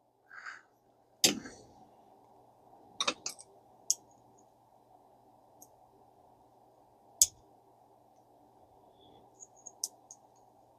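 Small metal fishing-reel parts clicking and tapping as they are handled: scattered light clicks, a quick cluster about three seconds in and a few more near the end.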